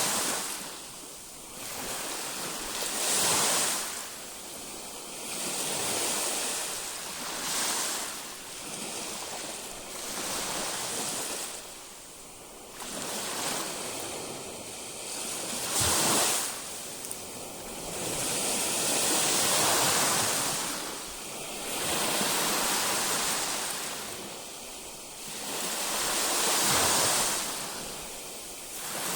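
Baltic Sea waves breaking and washing up the shore, the surf swelling and falling away every few seconds.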